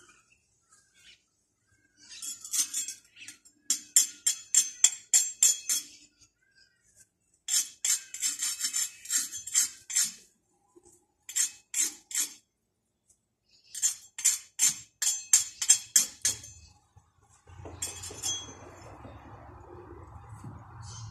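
Quick runs of sharp metallic taps and clinks, a metal hand tool striking bricks as brick edging is set, in four bursts of a second or a few seconds each. A steady low rumble comes in near the end.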